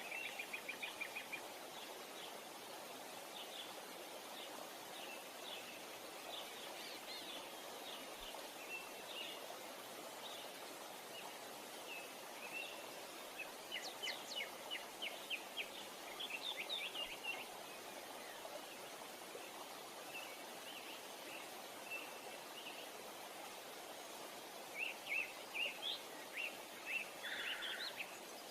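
Small birds chirping in quick runs of short, high notes over the steady rush of a waterfall. The busiest runs of chirps come at the start, in the middle and near the end.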